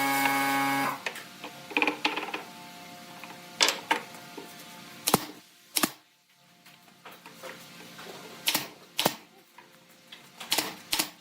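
Sharp, irregular knocks and clicks of workshop work, spaced a second or more apart, after a short loud buzzing tone in the first second.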